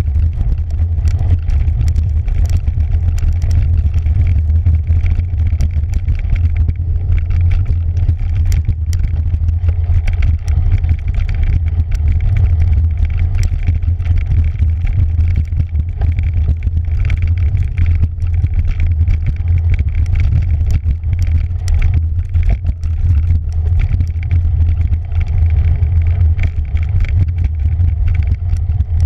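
Cyclocross bike riding fast over a dirt and sand forest trail, picked up by a camera mounted on its handlebars: a loud, steady low rumble of wind and vibration, with frequent sharp clicks and rattles as the bike jolts over bumps.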